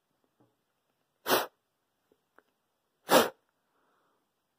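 Two short, forceful puffs of breath blown through a two-layer cloth face mask, about two seconds apart.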